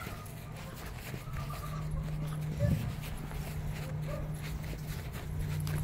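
American pit bull terrier puppy giving a few short whimpers and panting as it runs on grass, with rustling and a low thump about halfway through. A steady low hum runs underneath from about a quarter of the way in.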